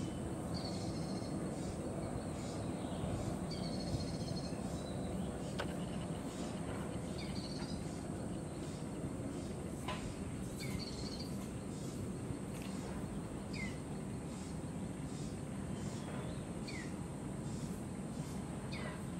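Garden ambience: a steady low background rumble and a steady high insect buzz, with short high bird chirps every few seconds, several of them dropping in pitch.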